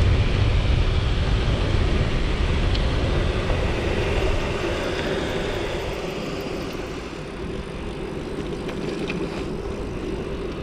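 Wind rushing over an action camera's microphone with tyres rolling, as a mountain bike is ridden at speed; the rush dies down about two thirds of the way through as the bike slows.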